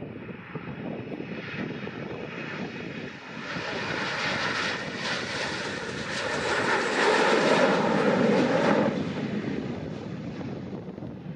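Airbus A321's twin jet engines at takeoff power as the airliner rolls past, lifts off and climbs away: the sound swells to its loudest about seven to nine seconds in, then fades. Wind rumbles on the microphone underneath.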